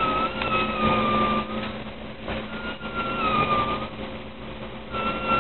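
A sleeping woman whistling in her sleep as she breathes, in place of snoring: a thin whistle that falls slightly in pitch and lasts about a second and a half. It comes twice and starts a third time near the end, over a steady low hum.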